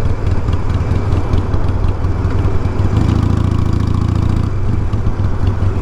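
Harley-Davidson motorcycle's V-twin engine running with a steady low rumble. Its note briefly fills out and rises between about three and four and a half seconds in.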